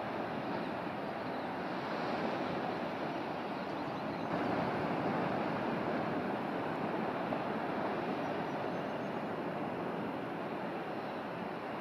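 Steady rushing noise of wind and surf, a little louder from about four seconds in.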